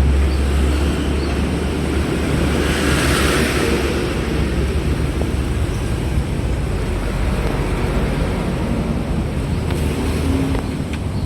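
Steady vehicle engine and road noise with a heavy low rumble, and a hissing swell that rises and fades about three seconds in.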